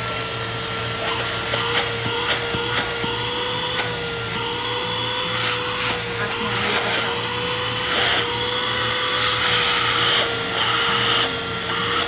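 Eufy HomeVac H11 Pure cordless handheld vacuum running at full speed: a steady high motor whine that wavers slightly in pitch, with a few light knocks from the body being handled.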